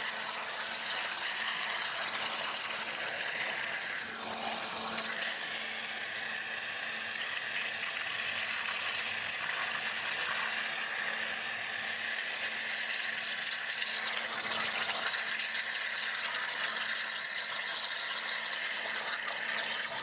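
Ultra-high-pressure CNC water jet cutting through metal sheet: a steady hissing rush of the jet, with a faint steady hum underneath.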